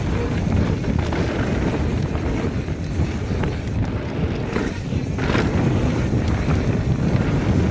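Wind rushing over the microphone of a mountain bike rider descending a dirt trail, over the steady rumble of knobby tyres on the ground, with a few brief knocks from the bike over bumps.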